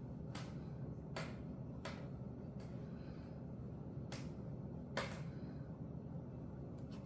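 Six or seven light, sharp clicks scattered irregularly as a handbag and its metal hardware are handled, the loudest about five seconds in, over a steady low hum.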